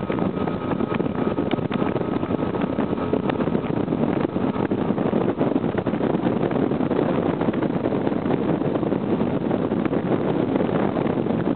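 Bass boat with a Mercury 200 EFI outboard running at speed: a loud, steady rush of wind and water noise.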